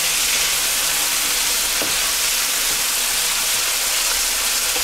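Diced potatoes, bacon and onions frying in clarified butter in a pan: a steady sizzle, with a wooden spatula stirring through them.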